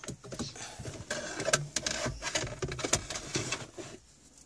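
Bundled stereo wiring and plastic connectors rustling, scraping and clicking as they are worked and pushed into the dash cavity behind the head unit, with many irregular knocks that die down about four seconds in.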